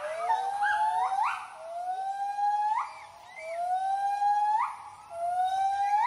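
White-handed gibbons giving their territorial hooting call: a series of long whooping notes, each rising slowly and then sweeping sharply upward at the end. Several voices overlap in the first second, then single notes follow about every second and a half.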